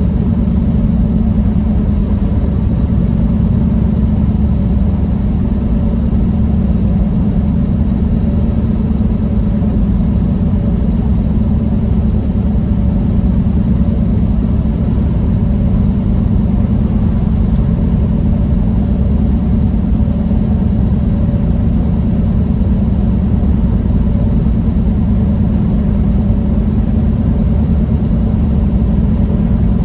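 Steady low drone of a semi-truck's diesel engine and road noise, heard inside the cab while cruising at an even speed.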